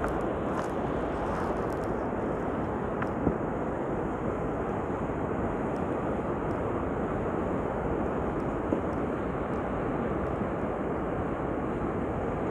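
Steady rushing noise of ocean surf and wind on the microphone, with two brief ticks, one about three seconds in and one near nine seconds.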